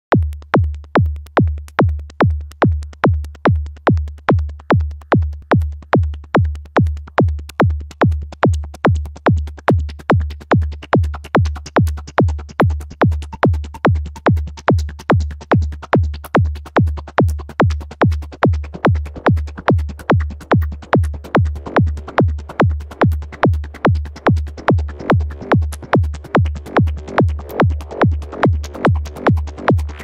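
Psychedelic trance played on hardware synthesizers and a drum machine: a steady four-on-the-floor kick drum at 145 BPM under synth sounds. A higher synth line swells in about two-thirds of the way through.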